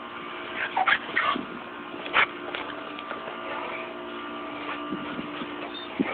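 A Rottweiler whimpering and yipping in a few short calls in the first couple of seconds, over a steady background hum.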